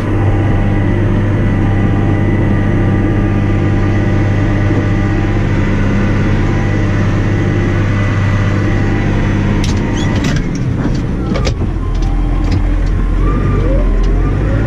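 Massey Ferguson 6480 tractor's six-cylinder diesel running steadily, heard from inside the cab. About ten seconds in there are a few clicks, and the engine note changes, sliding up and down in pitch as the tractor slows and turns.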